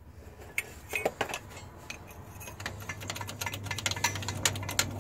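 Irregular metallic clicks and ticks that come quicker and denser in the second half, over a low steady hum.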